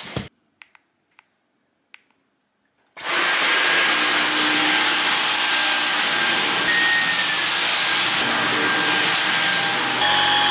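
Dyson cordless stick vacuum running on a rug. It starts about three seconds in, after a few faint clicks, and runs as a steady whir with a high motor whine. The tone changes near the end.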